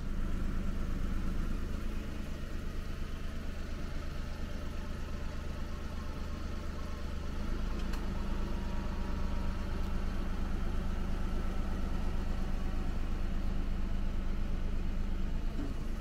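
A steady low engine hum, like a motor vehicle idling.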